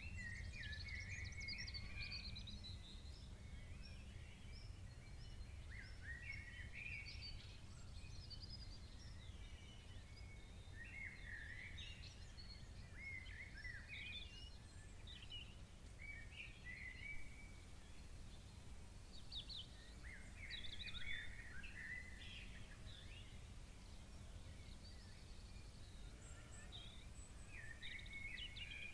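Birds singing: a string of quick, varied chirps and warbling phrases with short gaps between them, over a steady low rumble.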